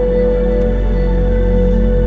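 Background music: slow ambient, new-age style, with long held notes over a steady low drone.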